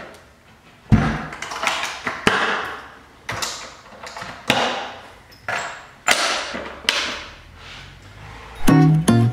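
Plywood cargo box lid, coated in bedliner, shut with a thump about a second in, followed by a series of clicks and knocks as its metal draw latches are snapped closed. Acoustic guitar music comes in near the end.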